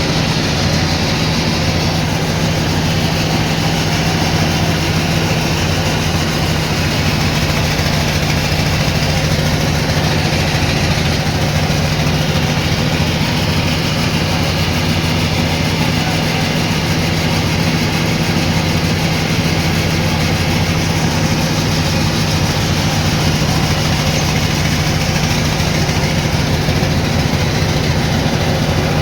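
Sawmill machinery running steadily, a constant low hum under an even mechanical noise, with no distinct cuts or impacts.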